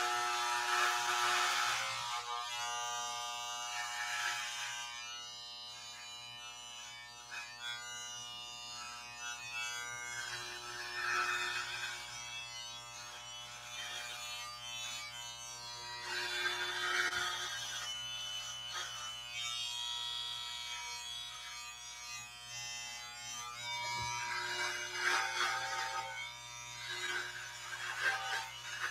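Electric hair clippers running with no guard: a steady buzzing hum, with rougher, louder patches now and then as the blades cut through beard hair.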